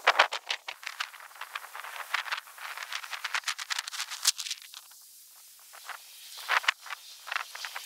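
Quick run of small clicks and rattles from handling work at the copper lineset's brass flare fittings. They come thickly for the first four seconds or so, then a few more scattered clicks near the end.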